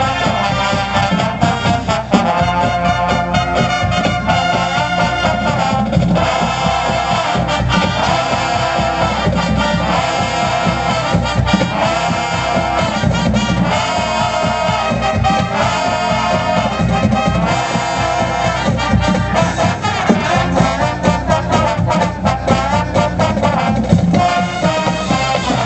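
Marching band playing at full volume: brass sections (trombones and trumpets) sounding held chords over steady, driving drum strokes.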